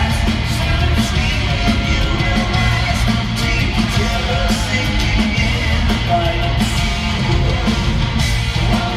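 Heavy metal band playing live in an arena: distorted electric guitars, bass and drums playing continuously at full volume.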